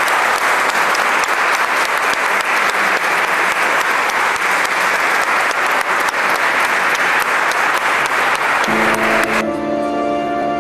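Congregation applauding, a sustained round of many hands clapping that cuts off abruptly near the end as instrumental music comes in.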